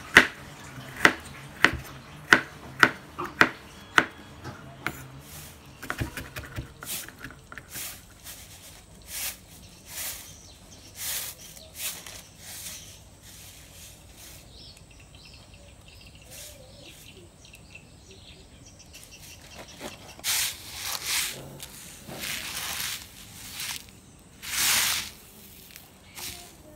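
Kitchen knife chopping ginger and shallots on a wooden cutting board: sharp knocks about every half second for the first few seconds, then a few more. Later come softer irregular rustling and scraping noises, with several louder swishes near the end.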